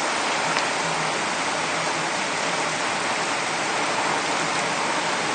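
Torrential rain pouring down in a thunderstorm, a steady, unbroken hiss.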